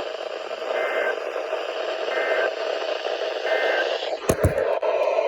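Weather radio receiver hiss and static with three short, faint two-tone data bursts about a second and a half apart, typical of the SAME end-of-message code that closes an EAS test. A few sharp clicks come near the end.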